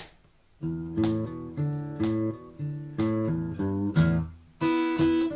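Acoustic guitar playing, plucked notes and chords struck about every half second. A brief click comes at the very start, and a brighter strum comes near the end.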